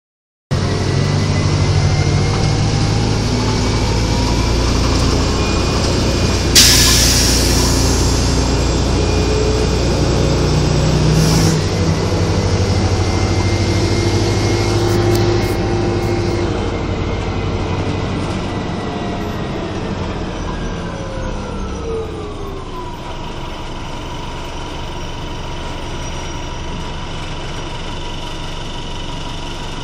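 Inside a 1996 Nova Bus RTS transit bus: the engine and drivetrain run loudly, with a whine that climbs as the bus pulls away. A sharp burst of air hiss from the bus's air system comes about a quarter of the way in, with a smaller one a few seconds later. Past the middle the whine falls away as the bus slows, then settles to a steady hum.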